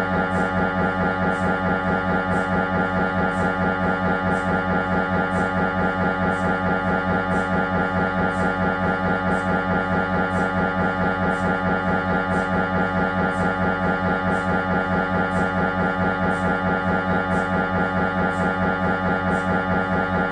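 Siemens Magnetom Avanto 1.5 T MRI scanner running a scan sequence: the gradient coils make a loud, steady, pitched buzz that pulses in an even repeating rhythm.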